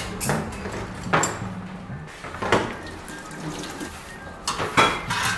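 A handful of separate knocks and clinks, with a cluster near the end, over a low steady hum that fades out about two seconds in.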